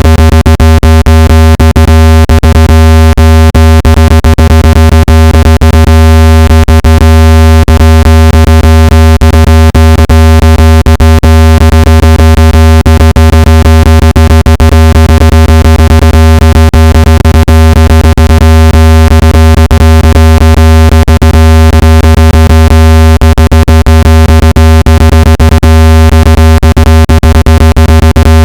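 Electronically generated speaker-cleaning tone at full volume: a steady deep hum with many steady higher overtones and frequent clicks, meant to vibrate dust and moisture out of a phone speaker.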